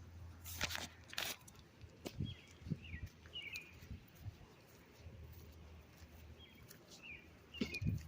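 Footsteps on outdoor ground, a scatter of light knocks, with a few short high chirps from birds now and then over a low steady hum.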